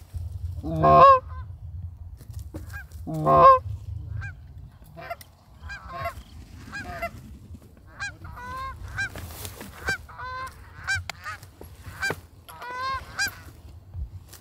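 Canada goose honks and clucks: two loud, close honks about one and three and a half seconds in, then a run of quicker, repeated clucks and honks.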